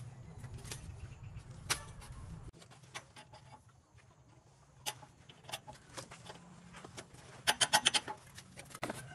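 Scattered sharp clicks and knocks from hand work with a caulking gun at the base of a wall, with a quick run of about six clicks a little before the end.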